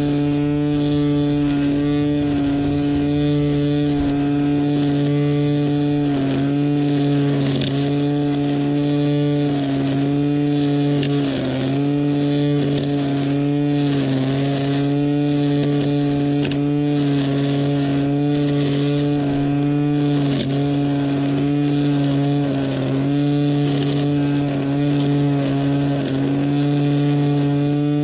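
Greenworks 40V cordless string trimmer running at speed, a steady electric motor whine with the spinning line. Its pitch dips briefly every few seconds as the line bites into the grass along the lawn edge.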